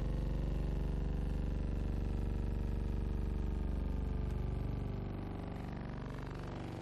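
Steady low drone of aircraft engines, with a dense pitched hum; it eases a little in level and pitch about five seconds in.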